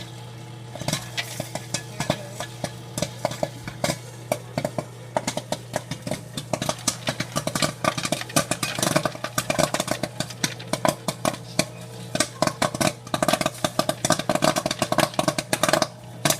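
Popcorn kernels popping in the oiled kettle of a kettle-style popcorn machine, scattered pops at first that build within a few seconds into rapid, dense popping. A steady hum from the machine runs underneath.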